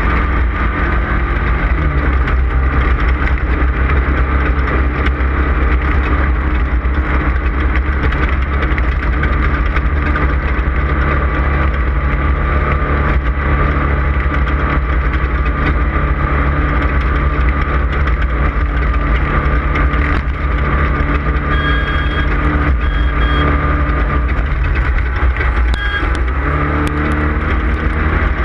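Off-road race vehicle's engine running hard at a steady pace over a dense rumble of wind and terrain noise. Near the end its pitch dips briefly and then climbs again, and a few short electronic beeps sound.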